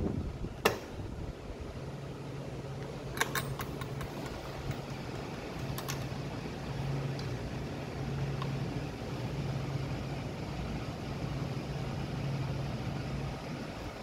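A few light metallic clicks of a small brass hook-and-eye latch being handled and hooked, including a quick cluster about three seconds in, over a steady low hum.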